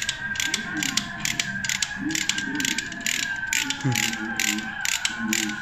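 Ratchet wrench with a long extension clicking evenly, about three clicks a second, as it turns a bolt on the side of a motorcycle engine next to the flywheel.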